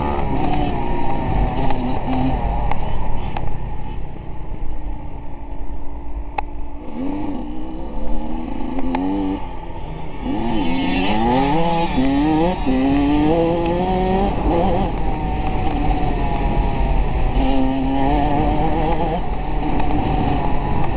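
A vehicle engine revving up and down again and again, its pitch rising and falling with the throttle, over a steady low rumble. A single sharp click comes about six seconds in.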